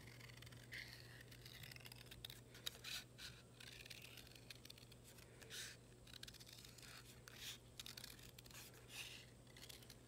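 Faint, irregular snips of scissors cutting a circle out of paper.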